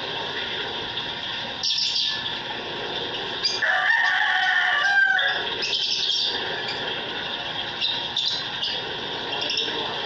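Caged aviary birds, lovebirds among them, chirping and calling in short bursts over a steady high chatter. About three and a half seconds in comes one longer, louder drawn-out call lasting over a second.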